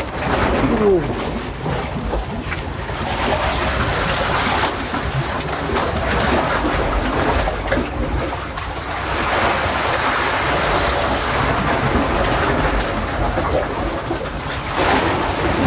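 Sea waves surging and washing through the gaps between coastal rocks, swelling louder several times over a steady low rumble.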